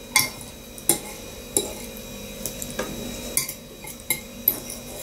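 Metal fork clinking and scraping against a ceramic bowl while eating potatoes, about seven sharp clinks spread across a few seconds.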